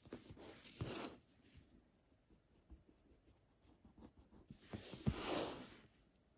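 Graphite pencil scratching on a sheet of paper as lines are drawn, with two louder rasping stretches of about a second each, one at the start and one about five seconds in, and faint strokes between them.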